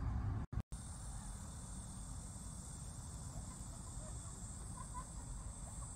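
Insects in summer vegetation buzzing in one steady high-pitched drone over a low outdoor rumble, starting after a brief break in the sound about half a second in.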